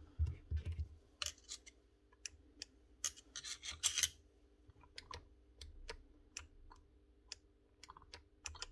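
Scattered clicks and taps from hands handling a Rotabroach Element 50 magnetic drill and pressing its control-panel push button, with a short scraping rub about three to four seconds in, over a faint steady hum. No motor starts: the magnet will not switch on, which the owner puts down to a wiring fault.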